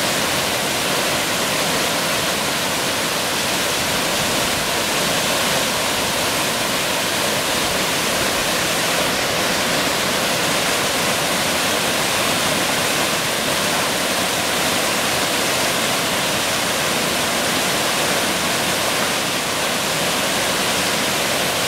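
Waterfall crashing steadily, a constant dense rush of falling water with no change throughout.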